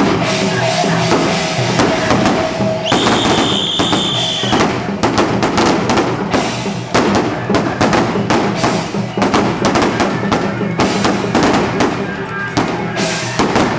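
Strings of firecrackers crackling in rapid, irregular pops over festival music with drums and a low steady drone. About three seconds in, a high whistling tone holds for a second and a half.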